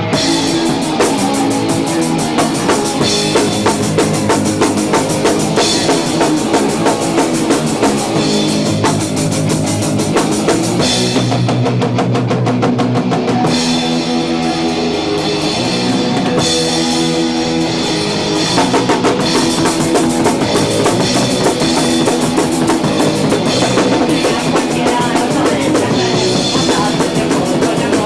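Punk band playing live: fast drum kit and guitar driving a rock song.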